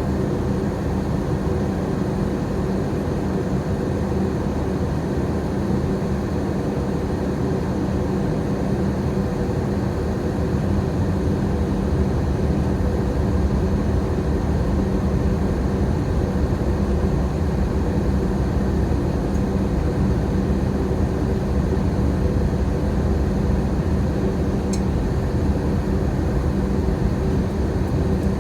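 Airplane cabin noise in flight: a steady drone of engine and rushing air with a low hum.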